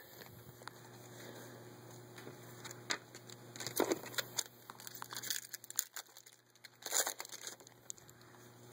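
Trading cards being handled and slowly slid apart to reveal the next card, with scattered crinkling and scraping of cards and pack wrapper. The sharpest crinkles come a little before 4 seconds and about 7 seconds in.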